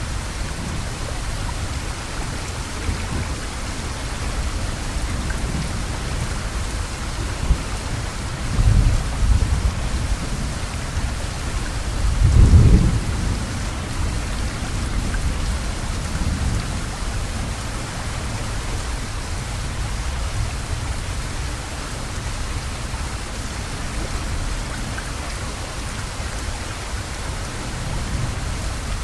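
Heavy rain falling steadily, a dense even hiss of rain on surfaces. Two brief low rumbles stand out, one about nine seconds in and a louder one about thirteen seconds in.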